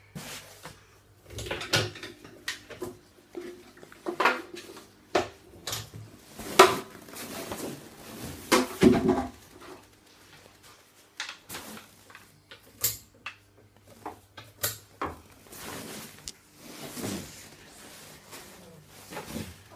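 Irregular knocks and clatter as the swing's clip-on attachments, with their clips and rope, are handled and hooked on.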